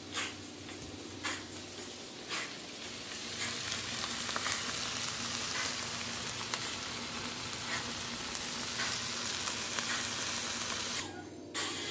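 Vegetables sizzling as they fry in pans, a steady hiss with a few light clicks in the first couple of seconds; the sizzle grows louder about three and a half seconds in.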